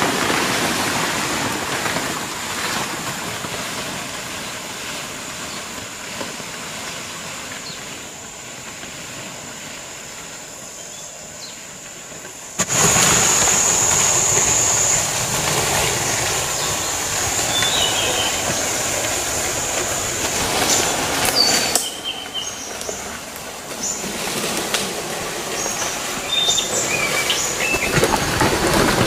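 Outdoor forest ambience: a steady high-pitched insect drone over rustling leaves and undergrowth as leafy banana stalks are carried through. About halfway through, the sound jumps abruptly louder and the drone briefly strengthens. Short bird chirps come and go in the second half.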